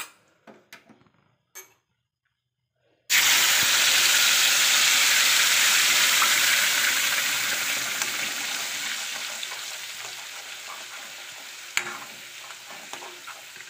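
Wet ground masala paste hitting hot oil in a steel kadai: a loud sizzle starts suddenly about three seconds in and slowly dies down as the paste fries. Near the end, a spoon clinks against the pan as the paste is stirred.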